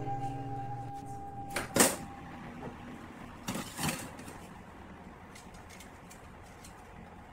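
Soft guitar music fading out, then two short metallic clatters, about two and four seconds in, as a metal sheet pan is set onto the rack of a countertop oven and pushed in.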